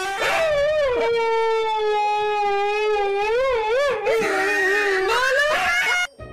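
Husky howling: one long steady howl that wavers, turns rough and breaking, then rises in pitch, cut off suddenly about six seconds in.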